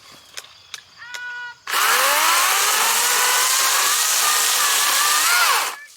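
Battery-powered chainsaw (Wild Badger 40-volt, 16-inch) starting up about two seconds in, its motor whine rising as it ramps up to speed, then running hard for about four seconds before stopping near the end.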